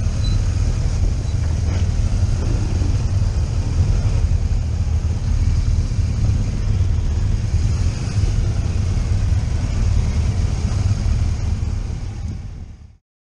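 Motorcycle engine running with a steady low rumble and wind buffeting the camera's microphone, fading out near the end.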